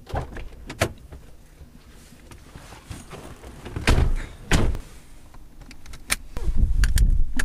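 Car doors: a couple of light clicks, then two doors shutting about half a second apart. A loud low rumble follows near the end.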